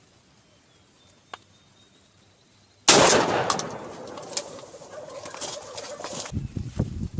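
A wild turkey gobbling, breaking in suddenly about three seconds in after near quiet and trailing off over the next few seconds. Low thuds follow near the end.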